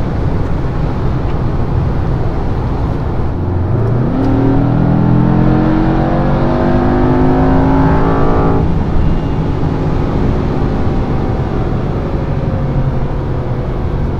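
Mercedes-AMG 4.0-litre twin-turbo V8 under hard acceleration in a 2021 E63 S. Over a steady road-noise drone, the revs jump suddenly about three and a half seconds in, then climb steadily for about five seconds. The engine note then cuts off, leaving the steady road drone.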